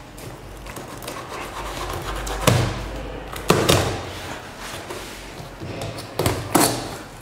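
Cardboard carton being handled and slit open with a utility knife: four sharp thumps on the cardboard, with quieter scraping and rustling between them.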